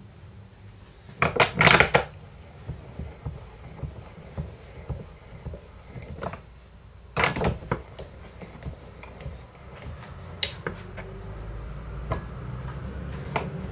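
Clatter and knocks of tools and parts being handled on a workbench, in two louder bursts with single clicks between them, over a low rumble that grows near the end.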